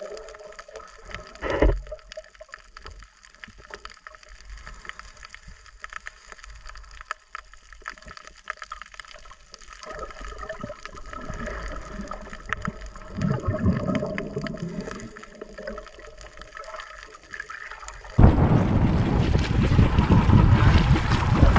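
Muffled underwater sound of a night dive: faint bubbling and scattered clicks, with one sharp thump about a second and a half in. About eighteen seconds in it cuts to the surface, where much louder wind on the microphone and water splashing at the side of an outrigger boat take over.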